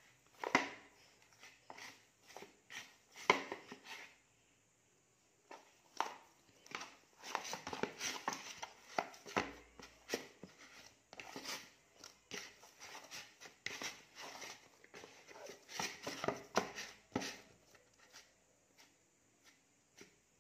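Hand kneading soft wheat-flour dough in a plastic bowl: irregular squishes and slaps of the dough, with knocks of the hand against the bowl, busiest through the middle.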